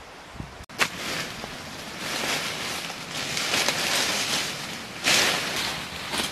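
Dry fallen leaves rustling as they are brushed and pushed aside by hand, with a louder burst of rustling about five seconds in.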